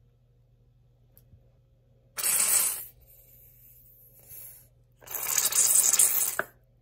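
Squeeze bottle of bacon ranch dressing being squirted, in two noisy bursts: a short one about two seconds in and a longer one of about a second and a half near the end.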